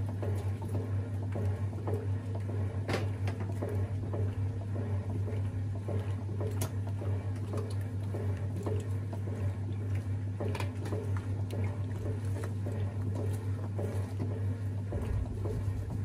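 1950s THOR washing machine agitating a load of clothes: water and laundry slosh and churn around the agitator over a steady electric motor hum, with a few faint clicks.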